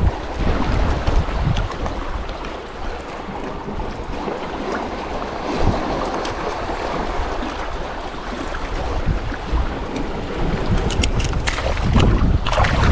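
Wind buffeting the microphone over the wash of small sea waves, with a few light clicks near the end.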